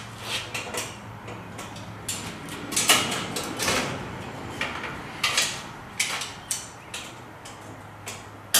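Irregular metallic clicks, knocks and rattles from a paramotor trike's metal frame and cage as it is handled while hanging from a strap to check its balance.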